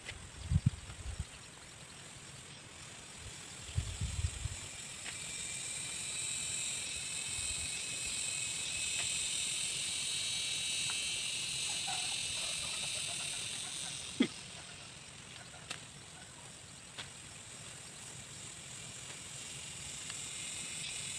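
Insects droning in the surrounding vegetation: a steady high drone that swells over several seconds and then fades. Two dull thumps come within the first five seconds, and a single sharp click about fourteen seconds in.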